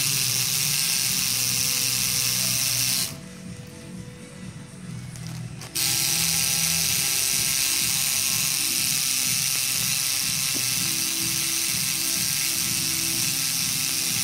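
Tattoo machine buzzing steadily while the needle works the skin. It stops about three seconds in and starts again a few seconds later.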